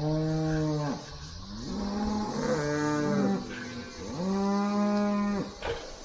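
Cattle mooing for food: three long moos that swoop up at the start, the middle one with two calls at different pitches overlapping. A sharp click near the end.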